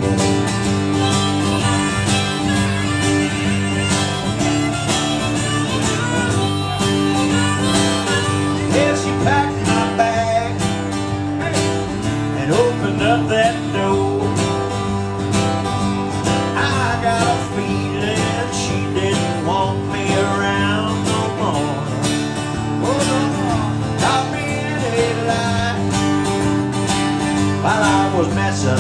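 Instrumental break in a country song: steady acoustic guitar strumming under a harmonica lead, with notes that bend and slide.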